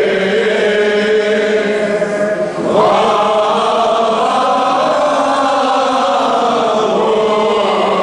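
Armenian liturgical chant: voices singing held, sustained notes, with a new phrase beginning on a rising note about three seconds in.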